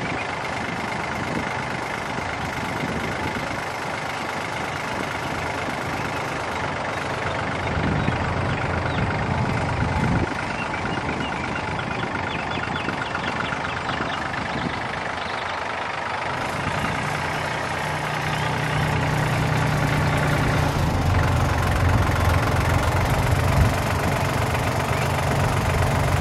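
John Deere compact tractor with a front loader, its engine running steadily as it drives, growing louder from about two-thirds of the way through as it comes closer.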